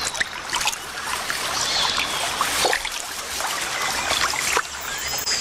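Water splashing and sloshing irregularly as a jaguar swims through a shallow, muddy river channel.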